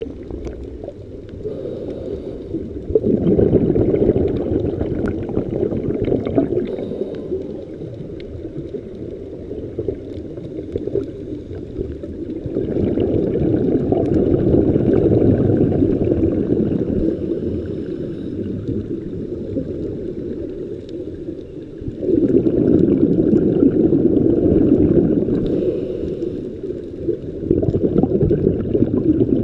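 Scuba regulator exhaust bubbles recorded underwater through a camera housing: a low, muffled bubbling that swells into four long surges of several seconds each, one per exhaled breath, with quieter stretches between.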